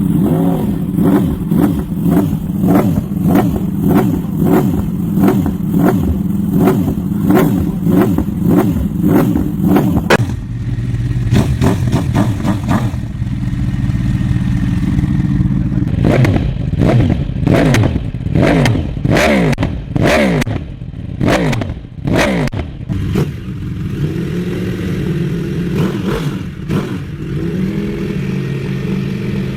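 Yamaha R1 inline-four engine through a loud GSPR aftermarket exhaust. For the first ten seconds it runs steadily with quick regular pulses. A string of sharp throttle blips follows, each rising and falling in pitch, and it settles back to a lumpy idle near the end.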